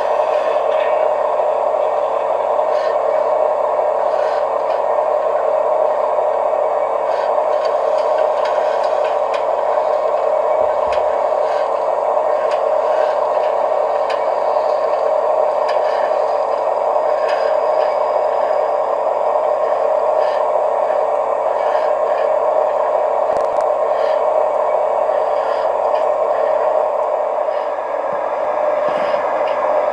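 An O-scale brass model of an SNCF 151 TQ steam locomotive running, giving a steady mechanical whir of its motor and gear drive, with a low hum and faint scattered clicks.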